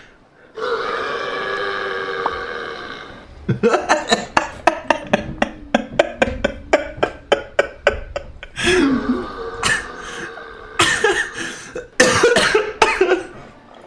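A man's loud, drawn-out burps: one long steady belch first, then several rough belches in the second half. Between them comes a quick run of sharp clicks, about four a second.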